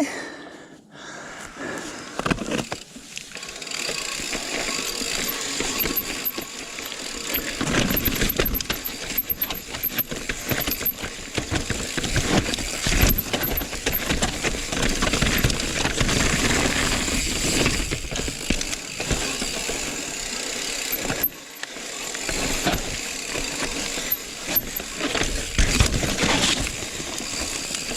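Full-suspension mountain bike rolling down a dirt trail: knobby tyres on dirt and rock, with the chain and frame rattling over bumps and wind on the microphone. It starts quietly and grows louder about three seconds in as the bike picks up speed.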